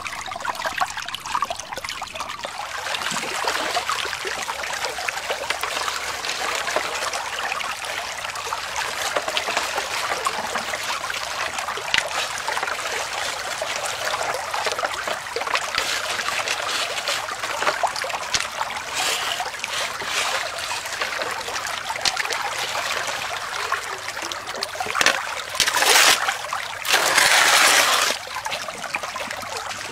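Creek water running steadily through a Bazooka gold sluice. Near the end come two louder rushes of splashing as shovelfuls of gravel are tipped into the sluice.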